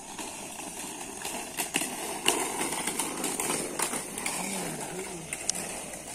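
Low chatter of a crowd of children, with a few faint voices, over a steady rough hiss and scattered clicks and taps.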